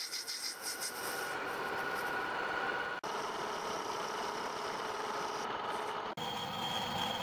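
Metal lathe running with a tool turning a metal workpiece: uneven scraping at first, then a steady run of motor and cutting noise with a faint whine. The sound breaks off abruptly twice, at about three and six seconds, and after the second break a higher whine is heard.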